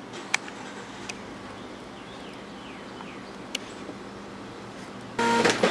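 Steady faint background hiss broken by a few sharp clicks, with faint falling chirps a little past the middle. Near the end it cuts suddenly to a much louder, pitched sound.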